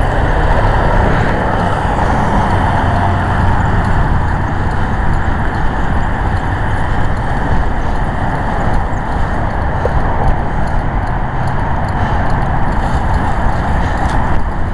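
Steady road and engine rumble of a moving vehicle, an even loud noise that does not change.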